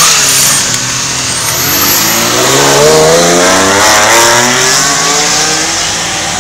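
Ferrari sports car engines accelerating past, the engine note rising in pitch from about two seconds in and fading near the end.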